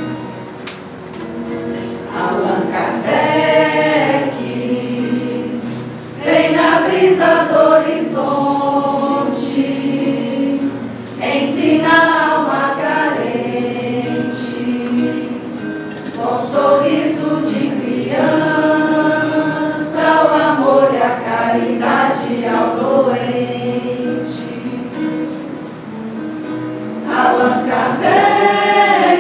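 Mixed choir of women's and men's voices singing a slow song in long held phrases, over a keyboard accompaniment.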